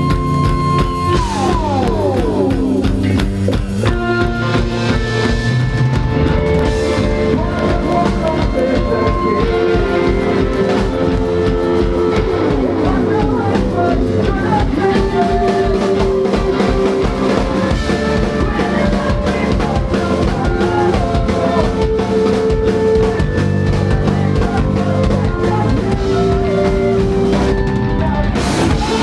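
A rock band playing live: a drum kit keeps a steady beat under guitar. A few falling pitch slides cut through, about a second in and again about twelve seconds in.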